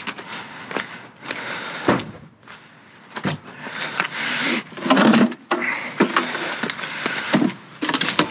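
Irregular clattering and rustling of things being handled and moved, with several sharp knocks.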